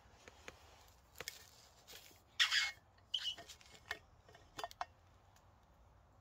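Small handling noises: a run of light clicks and knocks, with a short rustling burst about two and a half seconds in as the loudest sound.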